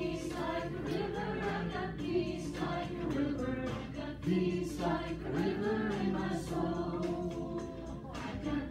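Group singing of a Christian song, several voices holding sung notes, with music underneath.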